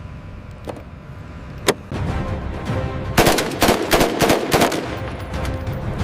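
A single sharp shot about a second and a half in, then a rapid burst of 7.62 mm M240 machine-gun fire lasting about a second and a half, over background music.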